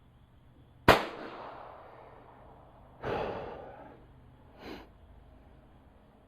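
A single sharp shot from a .22 LR Ruger Charger pistol about a second in, its report ringing out and fading. About two seconds later comes a second, duller bang, then a faint short click.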